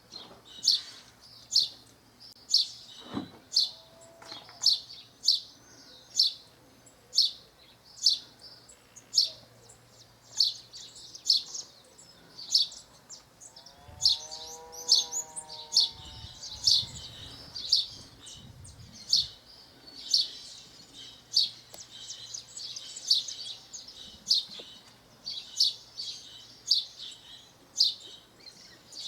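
House sparrow chirping over and over, about two short, sharp chirps a second.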